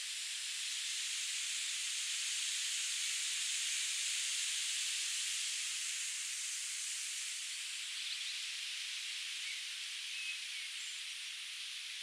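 Steady hiss of water rushing down a river cascade, swelling a little a few seconds in, with a few faint bird chirps over it.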